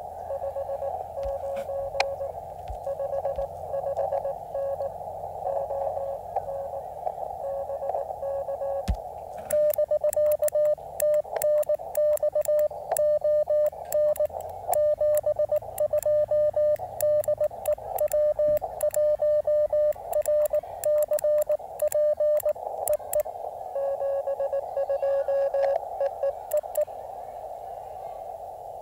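Morse code (CW) from an amateur radio transceiver, its receive audio a narrow band of hiss: first a faint incoming station beeping, then about ten seconds in a much louder keyed sidetone as the operator sends with a paddle, with sharp clicks along with the keying. Near the end the sending stops and a faint station beeps back.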